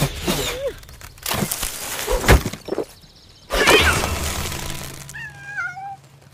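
Edited soundtrack of music with sudden knocks and crash-like hits about one to two and a half seconds in, and a loud burst about three and a half seconds in. Near the end a cat meows several times.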